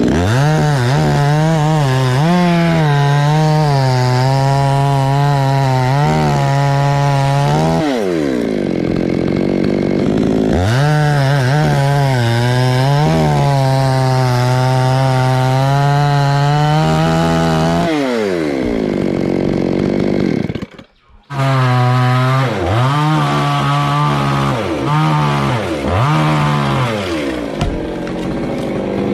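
Two-stroke chainsaw held at high revs, its pitch wavering as it cuts through coconut trunk wood, then dropping away as the throttle is released, twice. After a brief cutout about three quarters through, it comes back in short bursts, the revs dipping and picking up again several times.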